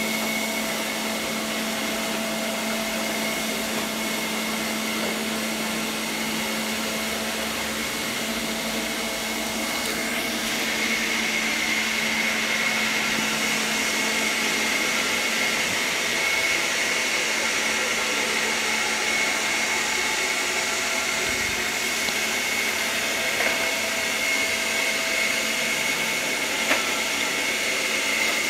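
ILIFE V5S robot vacuum running: a steady motor whine with a clear high tone over a noisy hiss, getting a little louder about ten seconds in.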